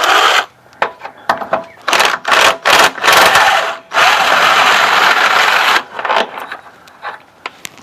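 Handheld power tool running in several short bursts, then steadily for about two seconds, backing out a Jeep body mount bolt. A few light clicks follow.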